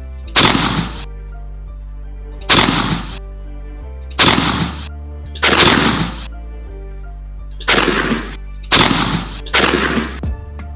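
Seven shotgun shots fired at flying ducks, each a sharp blast with a brief tail, spaced unevenly a second or two apart.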